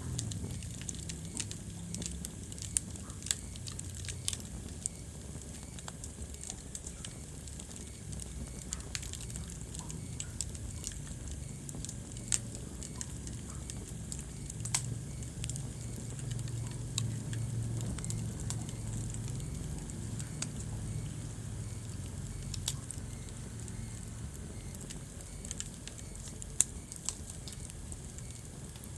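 Wood fire crackling in a fireplace: irregular sharp snaps and pops, a few louder than the rest, over a steady low rumble of the flames.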